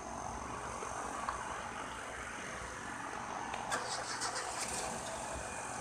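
Street traffic noise: a steady low rumble of motor vehicles running, with a few light clicks about two-thirds of the way through.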